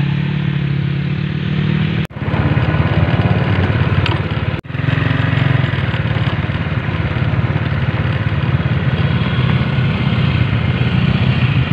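Small underbone motorcycle engines running steadily as a convoy rides off at low speed, with road and wind noise. The sound drops out for an instant twice, about two and four and a half seconds in.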